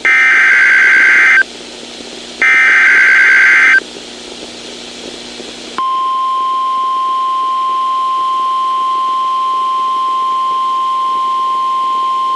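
Emergency Alert System SAME header on NOAA Weather Radio: two harsh bursts of warbling digital data tones, each about a second and a half long and a second apart. About six seconds in, the steady single-pitch 1050 Hz weather radio warning alarm tone starts and holds, announcing a severe thunderstorm watch.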